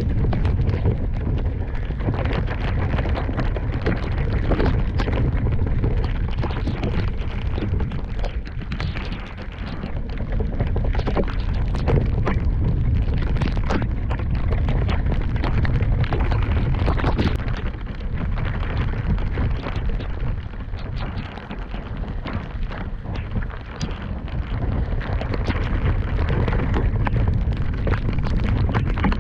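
Mountain bike ridden down a wet, muddy trail: a loud, continuous rumble of wind and tyres on the microphone, with constant clattering knocks from the bike over rough ground and splashes through mud and water.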